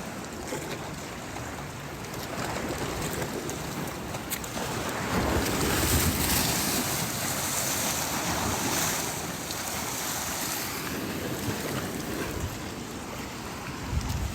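Wind buffeting the phone's microphone over waves washing against a jetty, a steady rushing noise. It swells louder about five seconds in and eases off again after about ten.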